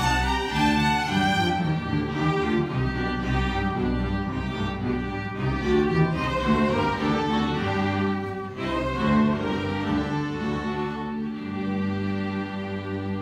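String orchestra of violins and cellos playing live, with bowed, sustained lines across several parts. Near the end the music grows softer over held low notes.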